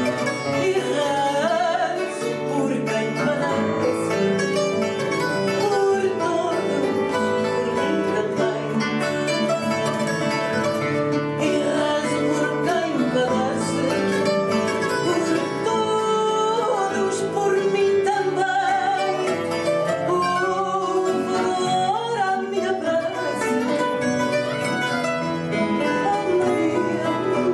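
A woman singing fado with long, held, ornamented phrases, accompanied by a Portuguese guitar playing quick plucked lines and a classical guitar.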